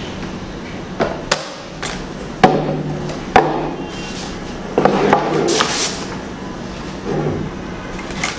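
Acrylic panels of an LED photo light box clicking and knocking against each other and the table as they are fitted together: a string of sharp taps, the loudest about two and a half and three and a half seconds in, with a quick cluster near five seconds.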